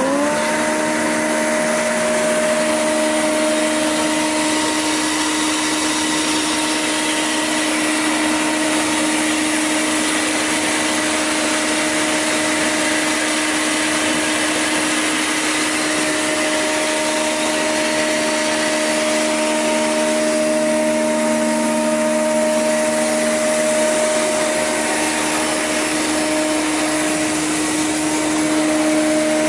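ŻEFAM DSXB-50 surface planer (jointer) switched on: its motor and cutterhead come up to full speed about half a second in, then run idle with no wood being cut, a loud, steady whine.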